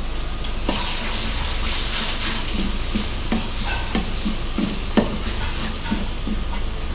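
Garlic sauce frying and sizzling in a wok over a gas flame while a steel ladle stirs it. The sizzle grows louder about a second in, and the ladle knocks and scrapes against the wok a few times.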